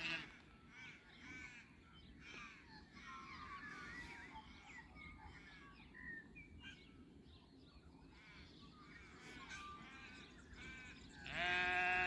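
Small birds chirping and singing throughout, then near the end a sheep starts one long, loud bleat.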